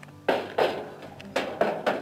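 A few footsteps crunching in snow, irregularly spaced, over background music.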